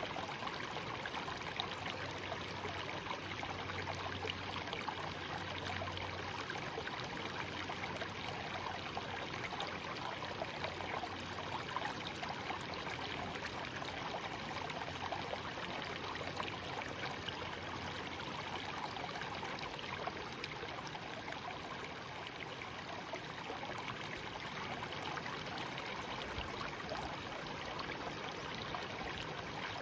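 Shallow stream babbling steadily over stones, an even rush of water with small trickling splashes.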